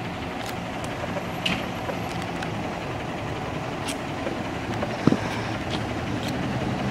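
Fire engine's diesel engine running as the truck rolls slowly closer, growing gradually louder. A couple of short sharp knocks, the loudest about five seconds in.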